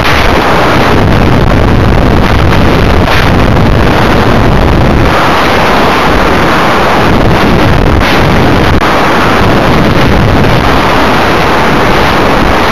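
Loud, steady wind rush buffeting the microphone of a camera riding on a high-power rocket in flight.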